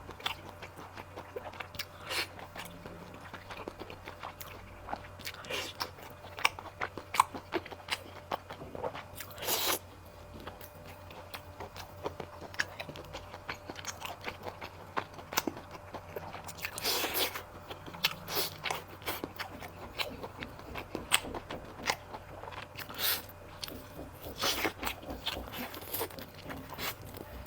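Close-up eating sounds: wet chewing and biting on sticky wontons and noodles coated in sesame paste, many irregular smacking clicks with a couple of longer, louder mouthfuls, over a steady low hum.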